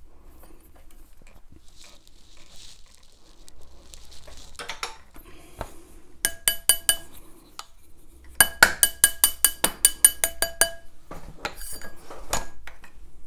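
Steel ring mandrel struck in quick metallic taps that each ring with a clear tone: a run of about six, a short pause, then a faster run of about a dozen at roughly five a second. The tapping closes the gaps in the joint of a copper ring held tight with binding wire, ahead of soldering.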